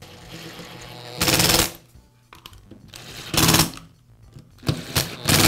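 A Torx screwdriver drives in the screws of a belt sander's belt cover, in short bursts of rapid rattling clicks, about four of them, each under a second.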